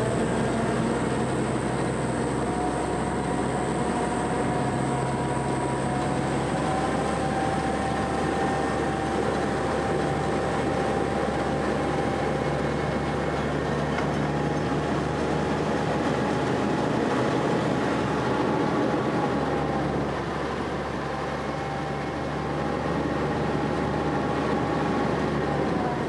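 Army duck (DUKW amphibious vehicle) engine running steadily as the boat cruises across the lake: a constant drone with a faint drifting whine over it.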